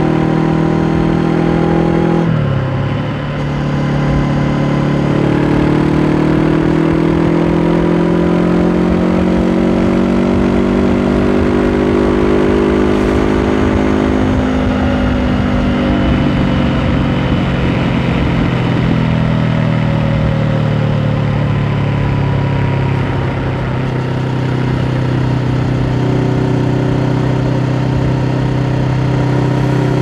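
Honda CB500F's 471 cc parallel-twin engine running through its stock exhaust at a steady cruise. The note dips briefly in pitch and loudness about two seconds in, then pulls on steadily, rising and falling slightly in pitch in the middle.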